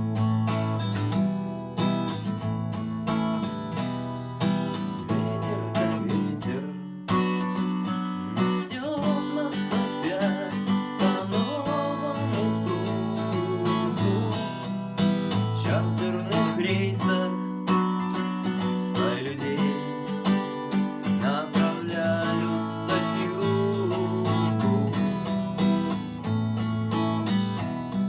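Acoustic guitar strummed in a steady chord rhythm, playing a cover of a pop-rock song, with a brief break about seven seconds in before the strumming comes back strongly.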